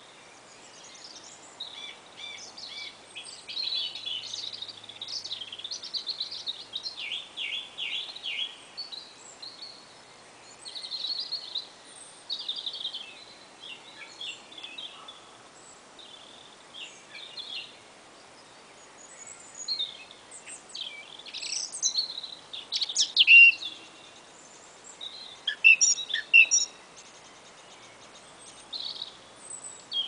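Several wild songbirds singing and calling at once, with overlapping chirps, trills and whistled phrases over a faint steady background hiss. The song comes in busy spells, with the loudest, sharpest notes about two-thirds of the way through.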